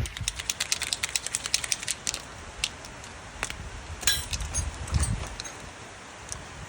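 A quick run of sharp clicks for about two seconds, then scattered single clicks and a dull knock about five seconds in, from hand tools and parts being handled during work on the vehicle.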